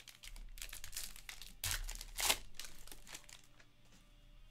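Plastic wrapper of a trading card pack crinkling and tearing as it is opened and handled: a run of sharp rustles, with two louder ones about halfway through.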